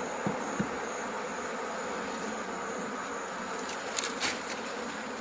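A swarm of African honeybees buzzing around an opened hive, a steady dense hum. A few brief clicks sound, most of them about four seconds in.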